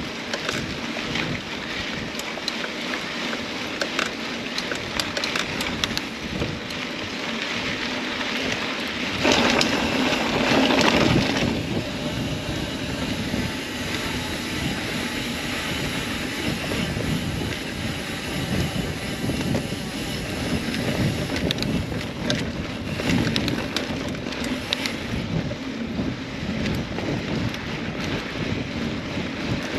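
Riding noise from a mountain bike on a dirt trail: wind on the microphone mixed with tyres on the ground and the bike rattling. About nine seconds in there is a louder rush lasting a couple of seconds.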